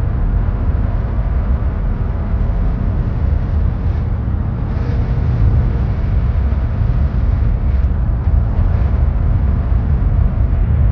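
Steady low rumble of a car driving on a highway, heard inside the cabin: tyre and engine noise.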